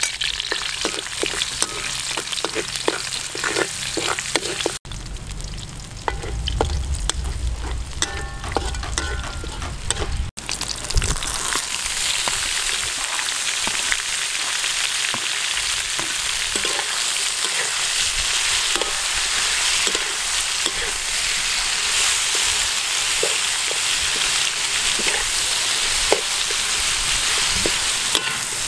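Food sizzling and frying in hot oil in a metal wok: minced garlic first, then pineapple chunks, green pepper, onion and tomato being stir-fried, with a utensil clicking and scraping against the pan. The sizzle grows denser and steadier about a third of the way in, and a low rumble sits under it for a few seconds before that.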